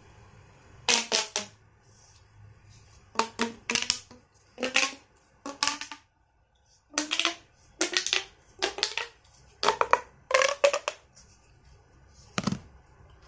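Blue corrugated plastic pop tube being stretched and squeezed in short bursts, each a fast ratcheting crackle with a tone in it. It happens about a dozen times, with a pause near the middle.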